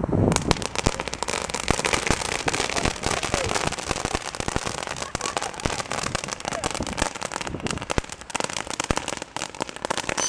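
Ground fountain fireworks spraying sparks with a dense, fast crackle that starts almost at once and keeps on steadily.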